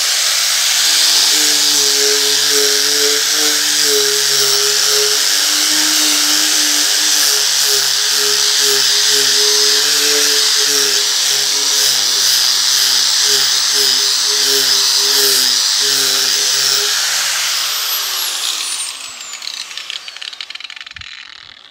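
Makita GA5030R angle grinder with a hook-and-loop backing pad and sanding disc, running at full speed while sanding a flat wooden board. About 18 seconds in it is switched off and winds down with a falling whine.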